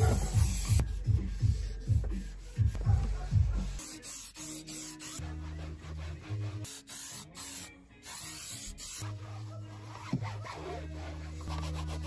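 Sponge rubbing over plastic car interior trim in quick back-and-forth strokes, about three a second, during the first four seconds, as dashboard polish is wiped in. Background music follows.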